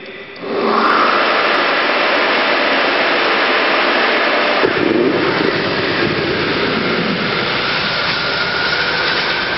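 Loud, steady rushing flow noise inside a steel pipeline, with a faint thin whistle, as the driving flow pushes a dual diameter pig along the pipe. The sound deepens about halfway through.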